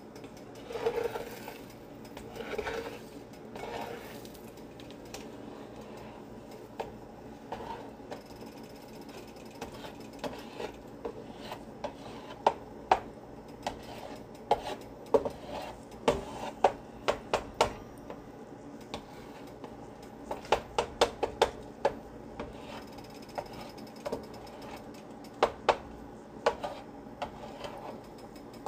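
Slotted spatula scraping and tapping against a nonstick frying pan while scrambling eggs: scattered sharp clicks, coming in quick runs about halfway through and again near the end, over a faint steady hum.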